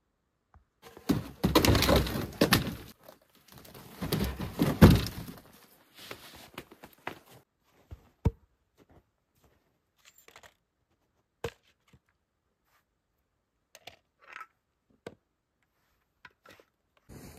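Handling noise in deep snow: two loud spells of crunching and rustling in the first five seconds, then scattered light knocks and clicks as gear is moved and set down. The chainsaw is not running.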